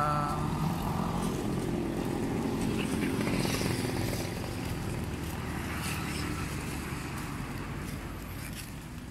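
Outdoor noise of a large walking crowd of pilgrims: shuffling footsteps and faint distant voices, slowly fading. A chanted prayer breaks off right at the start.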